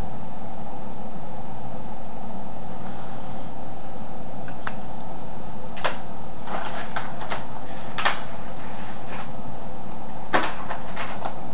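Scattered light clicks and taps of paint pens being handled and worked against a rock, a few isolated ticks in the middle and a small cluster near the end, over a steady background hum.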